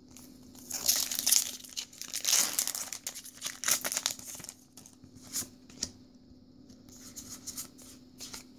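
Foil booster pack wrapper being torn open and crinkled: a run of crackling, ripping noises for about three seconds, then a few lighter rustles and clicks.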